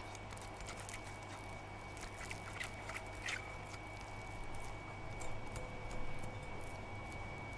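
Silicone spatula smearing softened butter around the inside of a glass bowl: soft rubbing and scraping with scattered small sticky clicks, over a faint steady hum.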